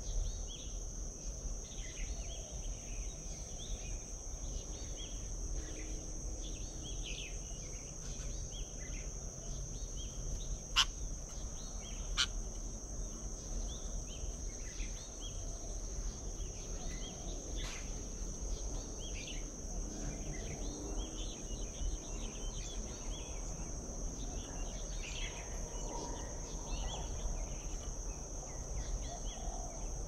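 A steady high-pitched insect drone with many short bird chirps and calls scattered over it. Two sharp clicks come about a second and a half apart, roughly a third of the way in.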